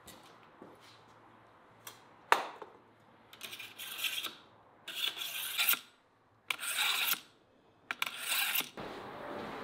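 Long kitchen knife drawn through the slots of a pull-through knife sharpener: four scraping strokes, each under a second long, spaced about a second apart. A sharp knock comes a couple of seconds in, before the strokes.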